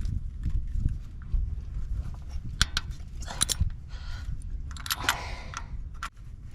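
Wrench working on engine bolts: scattered light metallic clicks and short scrapes over a low rumble of handling noise.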